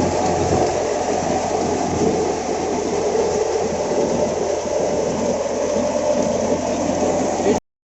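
Wheat thresher and the tractor driving it running steadily, a dense mechanical drone. It cuts off suddenly near the end.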